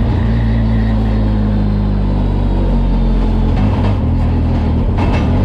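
Naturally aspirated race truck engine running at steady low revs, heard from inside the cab, its pitch dropping slightly about halfway through.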